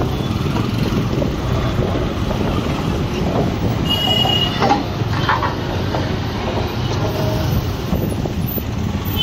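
Steady rumble and hiss of a moving vehicle, with a brief high squeal about four seconds in.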